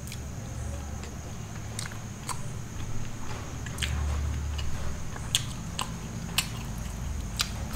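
Close-miked mouth sounds of a person chewing a paneer and corn taco, with sharp wet smacks and lip clicks roughly every second.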